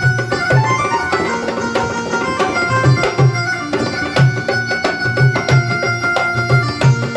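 Instrumental music with a steady rhythm of deep hand-drum strokes under sustained melodic tones.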